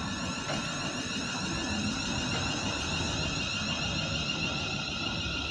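Class 350 Desiro electric multiple unit pulling away: a steady low rumble under a high electric whine, with faint rising tones above it.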